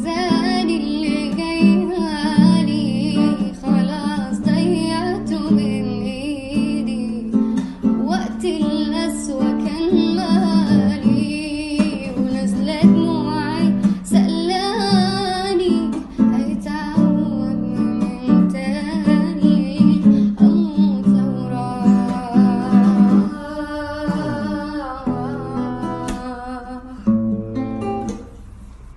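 A woman singing a song with acoustic guitar accompaniment, plucked and strummed.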